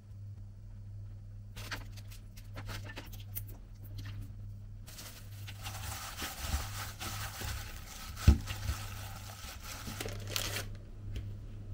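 A gloved hand mixes ground-meat gyoza filling in a glass bowl, with dense crinkling of the thin plastic glove from about five seconds in until shortly before the end. Before that come light scattered clicks of a spoon adding seasoning, and one sharp knock about eight seconds in.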